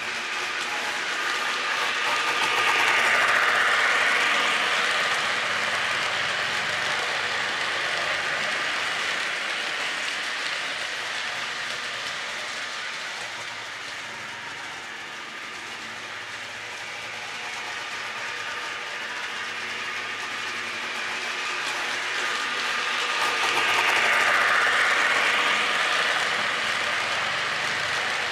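Lionel O-gauge model freight train hauled by an EMD SD9 locomotive running on the track, a continuous whir and clatter of motor gears and wheels on rail. It grows louder about three seconds in and again near the end as the train comes round the loop toward the camera, and fades in between.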